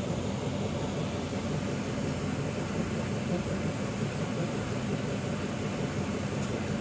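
Steady low idling-engine rumble with an even hiss, heard from inside a stationary car.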